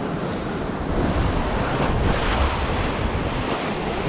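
Sea waves breaking and washing against a rocky shore, with wind buffeting the microphone. The surge builds about a second in and is loudest around two seconds in.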